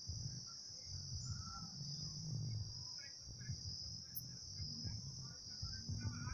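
Insects chirring in one steady, unbroken high-pitched band, with a low uneven rumble underneath.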